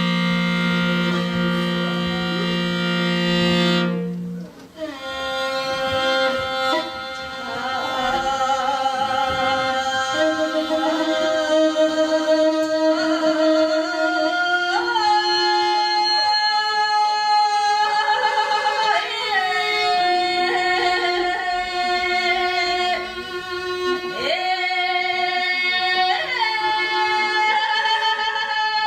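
Live music: a bowed string instrument holds a steady low note for about four seconds, then a voice sings a slow melody of long held notes with wavering vibrato and sliding ornaments over bowed-string accompaniment.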